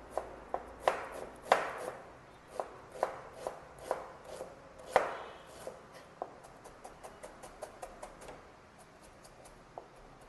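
Chef's knife chopping onion on a plastic cutting board: a run of knocks, the loudest in the first five seconds, then quicker, lighter taps that thin out near the end.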